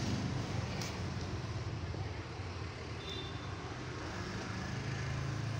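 Steady low background hum with an even hiss, and a faint click about a second in.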